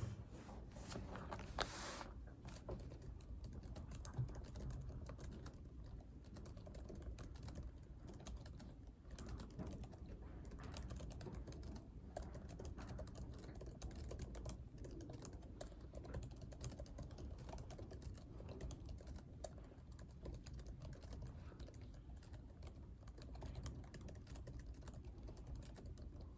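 Typing on a computer keyboard: a continuous run of light key clicks over a low, steady room hum.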